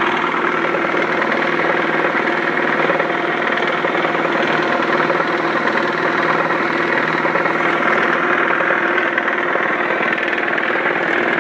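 Homemade rig of a 1 hp electric motor spinning a big flywheel and a 7.5 kW generator through belts and pulleys, running steadily and loudly with a vibrating rattle while still coming up to speed.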